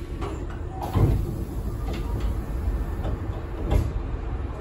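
Passenger doors of a Hankyu 7300 series train sliding open at a station stop, over the low rumble of the car. There is a thump about a second in and another near the end.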